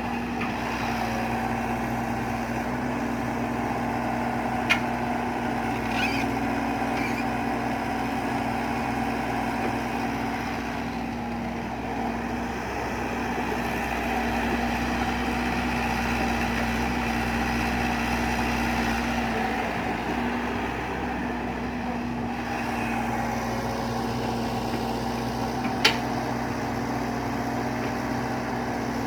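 Excavator engine running steadily, with two sharp knocks, one about five seconds in and another near the end.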